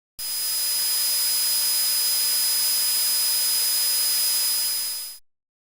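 Steady hiss, strongest in the highs, with a thin high-pitched whistle tone held on top; it starts suddenly and fades out after about five seconds.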